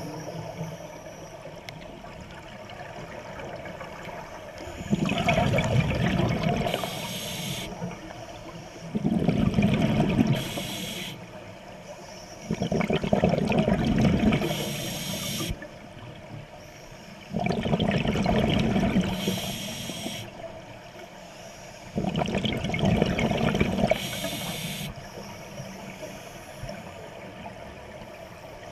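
Scuba diver breathing through a regulator underwater: five breaths about every four to five seconds, each a rush of bubbles with a short hiss near its end.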